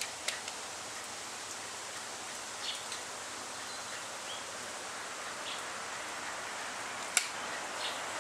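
Steady outdoor background hiss with a few short bird chirps scattered through, one a quick rising whistle. A single sharp click about seven seconds in stands out as the loudest sound.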